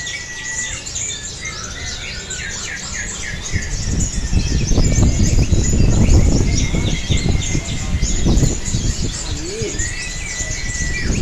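Many caged songbirds chirping and trilling rapidly at once, with a held whistle note at the start and again near the end. A loud low rumbling noise rises under the birdsong for a few seconds in the middle.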